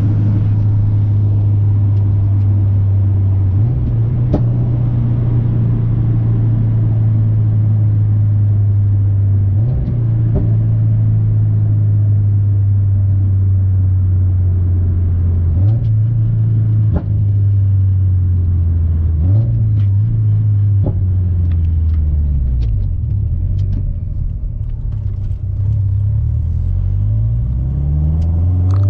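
Turbocharged Subaru STI flat-four with a Cobb titanium exhaust, driving: a steady low exhaust drone that steps up in pitch several times, then sinks and wavers as the revs fall, and rises again at the end as the engine picks up revs.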